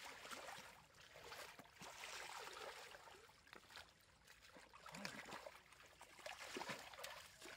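Faint sloshing and squelching of muddy water as a plastic basin is pushed and dragged through a shallow mud channel, with brief wet splashes.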